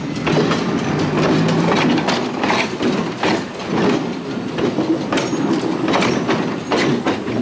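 Chicago, North Shore & Milwaukee interurban car 709 rolling past at low speed, its wheels and trucks clattering over the rails with a string of irregular sharp clicks over a steady rumble.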